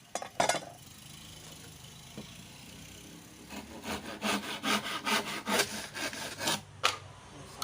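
Hand saw cutting through wood in quick back-and-forth strokes, about three to four a second, starting about halfway through. A couple of sharp knocks sound near the start.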